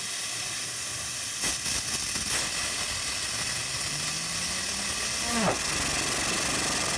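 A 60,000 PSI waterjet cutter's stream blasting a skateboard wheel, a loud, steady hiss, with a few sharp ticks early on. A low hum from the wheel, spun by the jet, rises slowly in pitch and then sweeps sharply down about five and a half seconds in.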